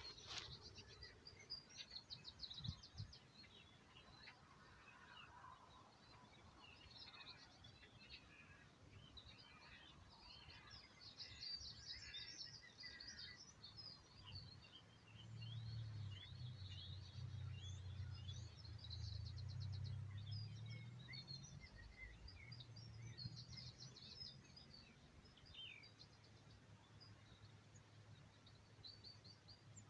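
Wild birds chirping and singing faintly around a field edge, many short calls and trills overlapping. A low steady rumble rises from about halfway through and fades a few seconds later.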